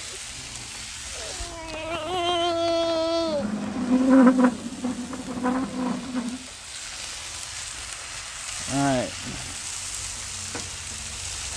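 Shredded hash browns and chicken tenders sizzling on a Blackstone steel flat-top griddle at medium heat, a steady frying hiss. About one and a half seconds in, a voice holds a high wavering note for about two seconds, and a short voice sound comes near nine seconds.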